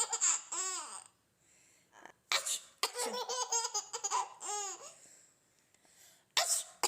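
Six-month-old baby laughing in bursts of high giggles. A woman sneezes about two seconds in and again near the end, and each sneeze sets off a new burst of the baby's laughter.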